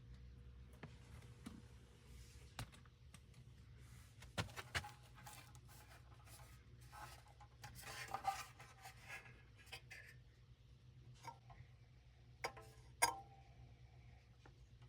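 Faint handling noises: scattered clicks and light knocks, with a stretch of rustling about eight seconds in and one sharp click near the end, over a low steady hum.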